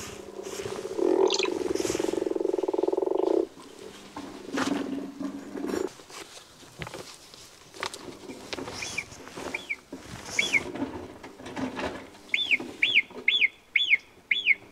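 Recorded animal calls played through a push-button animal-voice board's loudspeaker. First comes a common frog's low croaking call, lasting about three and a half seconds. Then, from about eight seconds in, a marmot's short high whistles repeat, about twice a second near the end.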